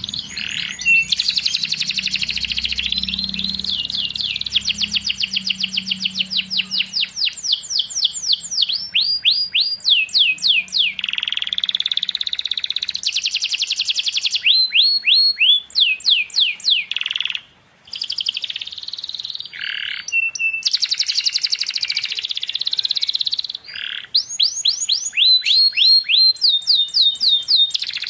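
Domestic canary singing a long, continuous song of fast trills and runs of repeated rising notes, broken by a short pause about halfway through.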